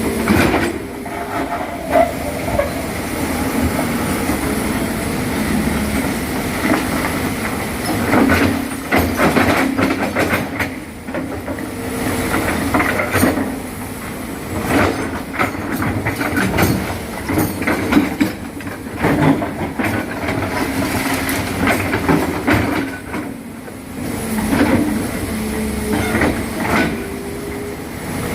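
Excavator at work: its diesel engine runs steadily under load while irregular metallic clanks and knocks come from the machine's tracks and bucket.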